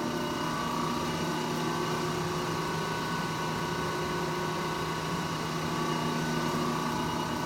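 1958 Monarch heavy-duty engine lathe running at about 50 RPM with the carriage under power feed away from the chuck: a steady mechanical hum with a few held tones.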